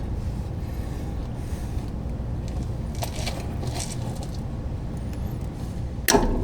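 Light metallic clinks of hand tools fitting a cotter pin through a castle nut, over a steady low hum, with one sharp metal clink about six seconds in.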